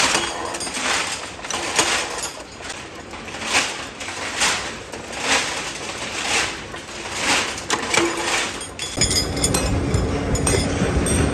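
Steel rods clattering and clinking against each other in a regular rhythm, about one clatter a second. About nine seconds in, a workshop machine's steady running hum sets in, with small metallic clinks over it.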